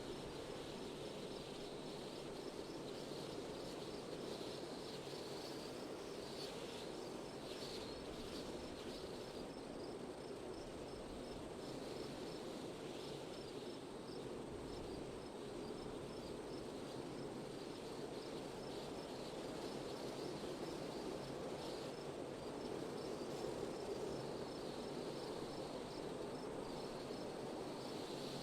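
Wind blowing steadily, a low even whoosh, with insects chirping in a fast, regular high pulse that fades in and out.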